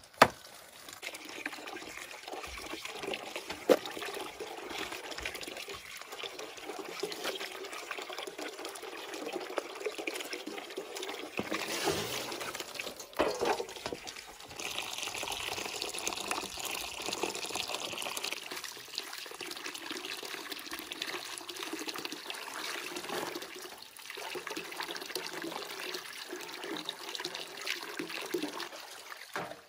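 Water running and splashing steadily, with a couple of sharp knocks right at the start.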